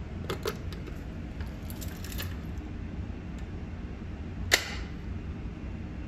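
Fire alarm pull station being handled: a few light clicks and rattles, then one sharp, loud click about four and a half seconds in, over a steady low hum.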